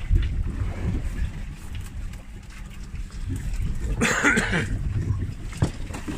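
Steady low rumble of the fishing boat and wind buffeting the microphone on the open sea, with a brief burst of hiss about four seconds in and a single sharp click near the end.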